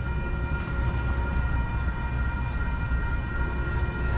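Locomotive air horn sounding one long, steady blast, several tones held together as a chord, over the low rumble of an approaching train.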